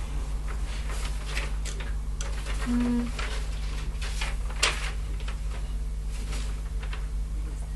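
Scattered rustling and clicking handling noises over a steady low hum, with one sharp click about halfway through and a brief low hum shortly before it.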